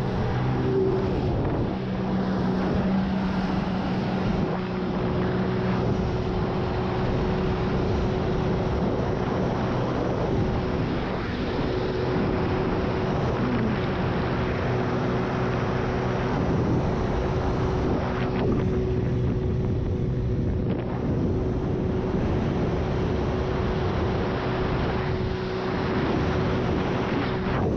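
Jet ski engine running at a steady pitch under a constant rushing noise.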